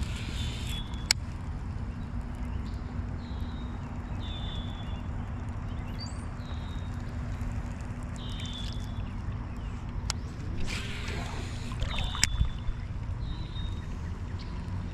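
Creek water sloshing and gurgling around a wading angler as he casts and winds in a topwater lure on a baitcasting reel, with a hissing rush twice, at the start and again about ten seconds in, and a few sharp clicks.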